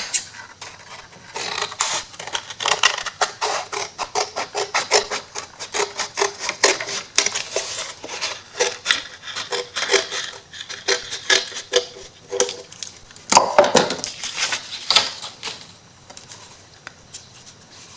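Paper being trimmed off an MDF wood piece with a craft knife: a quick run of short scraping, rasping strokes, several a second, with a louder scrape about thirteen seconds in, then it goes quieter.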